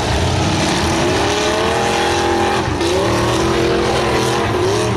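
Demolition derby car engines revving over a dense background din, the pitch climbing through the first two seconds, dipping about three seconds in, then rising again.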